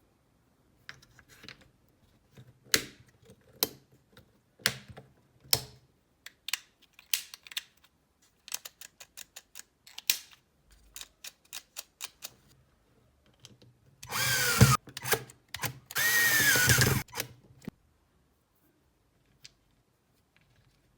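Hitachi 24V cordless drill run in two short bursts, its motor whining with the pitch sweeping as it spins up and slows each time. Before that, a long run of light clicks and knocks from handling the drill and its parts.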